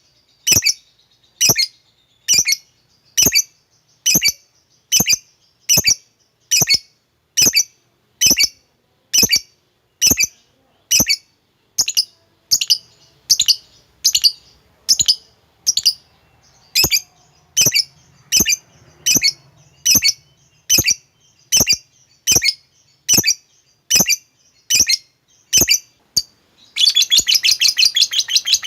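Lovebird giving sharp, evenly spaced chirps about two a second. Near the end it breaks into a long, rapid chattering trill, the "ngekek" song.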